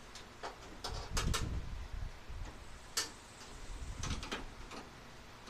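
Irregular light clicks and knocks of hand-work on the truck's grille, as the grille and its fasteners are handled and fitted. They come as about a dozen short taps, bunched about one second in and again about four seconds in, with a sharp click about three seconds in.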